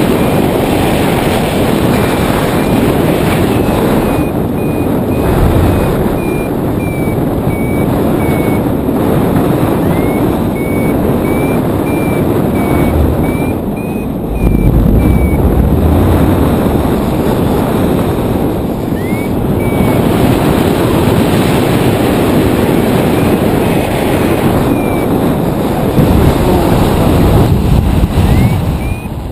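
Loud wind rushing over the microphone of a paraglider in flight, with a flight variometer giving strings of short high beeps whose pitch steps up and down, stopping and starting several times; beeping of this kind is the vario's signal that the glider is climbing in lift.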